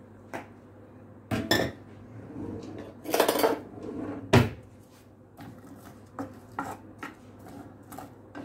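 Kitchenware clattering against a nonstick frying pan holding chopped onion in butter: a few loud knocks and a short rattle in the first half, then a run of light knocks and scrapes, two or three a second, as a wooden spatula stirs the onion.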